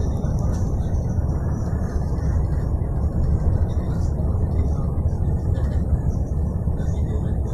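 Steady low rumble of a bus's engine and tyres heard inside the cabin while cruising at highway speed.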